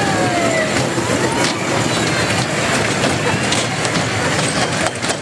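Small fairground kiddie train rolling along its track: a steady rumble with a few clicks and knocks from the wheels and cars.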